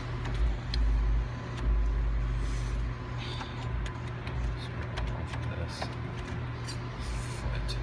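Arcade background din around a claw machine being played: a steady low hum with low thumps that swell and fade, scattered short clicks, and a faint steady high tone.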